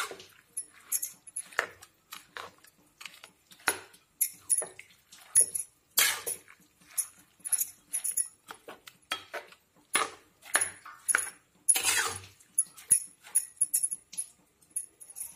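A metal spatula scraping and clinking against a metal kadhai while stirring grated carrots in milk: irregular scrapes and knocks, several a second.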